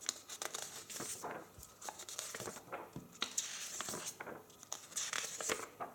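Pages of a large hardcover photo book being turned and handled: a string of paper rustles and swishes with a few sharp clicks.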